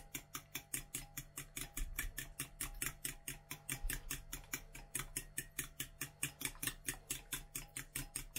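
A metal fork beating sour cream and eggs in a glass bowl, clicking against the glass in a quick, steady rhythm of about six strokes a second.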